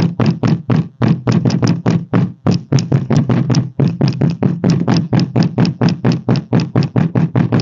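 Rapid knocking on a 2016 Renault Fluence's trunk lid, about six strikes a second, rattling the loose inner trim panel of the lid.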